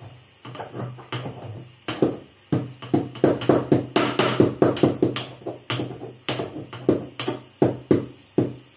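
Pestle pounding whole cloves in a mortar to grind them to powder: a quick, uneven run of hard knocks, stopping near the end.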